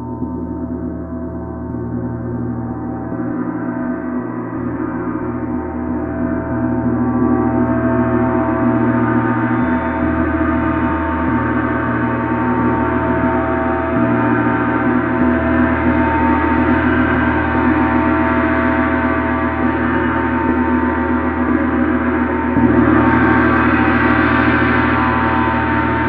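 A 30-inch Paiste Symphonic gong being played, a dense wash of many overlapping tones that swells over the first several seconds and keeps sounding. About 22 seconds in a stronger stroke brightens and lifts it.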